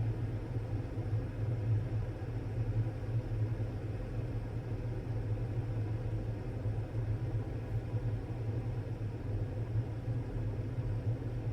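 Water rumbling steadily in a Makita DKT360Z cordless kettle as it nears a rolling boil.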